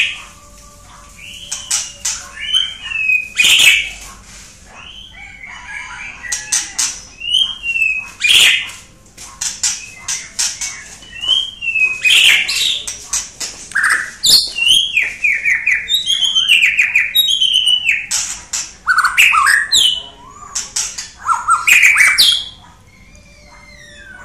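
White-rumped shama singing loudly: a fast, varied song of clear gliding whistles mixed with short harsh notes, phrase after phrase with only brief pauses, dropping away near the end.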